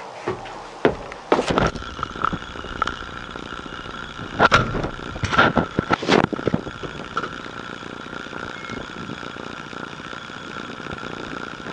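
Startup of a Volvo L70F wheel loader: clicks and knocks, a steady high tone from about a second and a half in, and three loud sharp noises about four to six seconds in. After that the diesel engine runs steadily.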